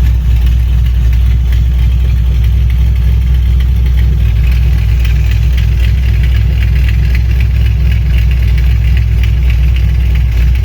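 Chevrolet small-block V8 engine idling steadily, with a light rapid ticking that grows more noticeable about four seconds in.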